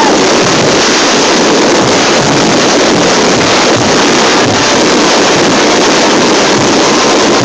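Dense fireworks barrage, aerial shells and ground-level fireworks going off so thickly that the bursts and crackle run together into one continuous loud noise, picked up on a phone's microphone.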